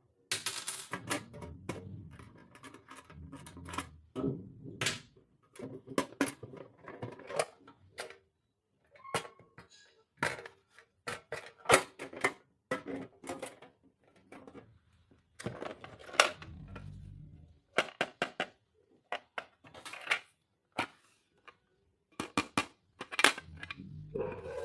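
Small plastic stationery items and packaging being handled: an irregular run of sharp clicks, taps and knocks with rustling between them.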